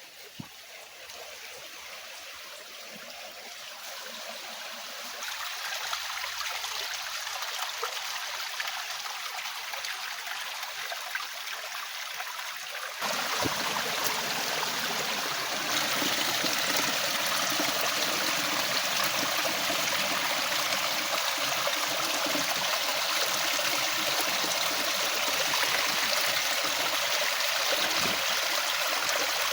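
Flowing river water, a steady rushing that grows louder, jumps up sharply about thirteen seconds in, then holds steady.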